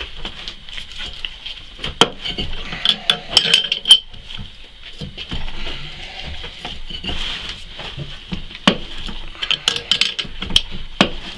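Irregular metallic clicks and clinks of hand tools working a bolt-type bearing press, pressing the greased hub into a new rear wheel bearing in a Honda Element's steering knuckle.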